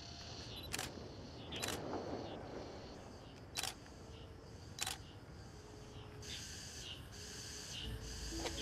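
DSLR camera shutter firing four times, a short sharp click each, spaced one to two seconds apart. A high buzz pulses in the background, repeating a little over once a second.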